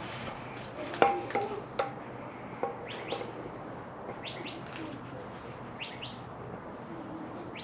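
A small bird chirping in quick rising notes, in pairs and threes, several times. Near the start there are a few light metallic clinks of parts or tools being handled.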